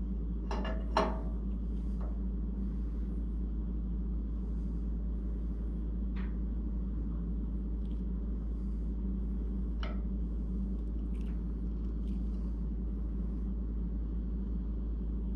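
A few faint, short clicks and knocks from an engine hoist's load-leveler crank being turned by hand under a heavy engine, over a steady low hum.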